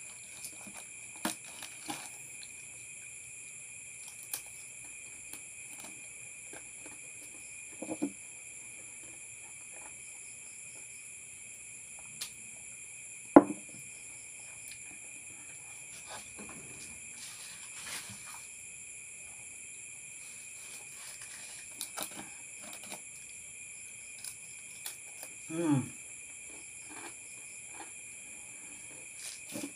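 Steady chirring of insects at several high pitches running throughout, with scattered small clicks and taps, the sharpest about halfway through, and two short low sounds that fall in pitch, about a quarter of the way in and again near the end.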